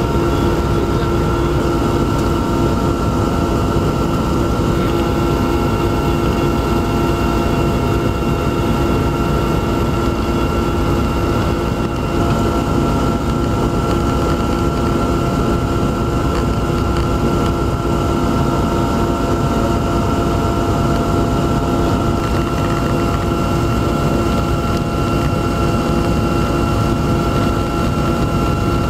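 Steady aircraft engine drone heard inside the cabin: a constant low rumble with several steady whining tones, unchanging throughout.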